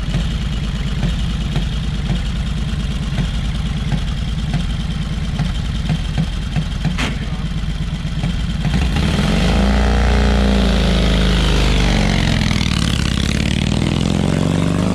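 Antique motorcycle engine idling with a fast, even low pulse, running again on a borrowed battery after its generator failed. About nine seconds in it gets louder and the engine pitch rises and falls as it revs and pulls away.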